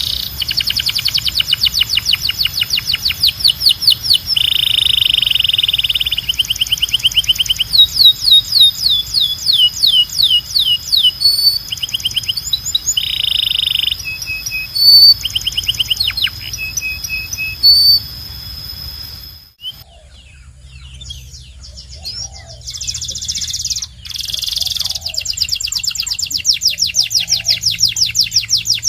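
Domestic canary singing: fast rolling trills of repeated sweeping notes, broken by a few held buzzy notes. About two-thirds through, the song cuts off abruptly, comes back quieter, then resumes in full trills. A low hum runs underneath.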